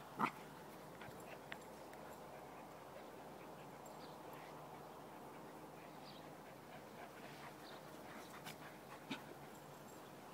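Puppies playing: one gives a short, sharp cry just after the start and another, smaller one about nine seconds in, over a quiet outdoor background.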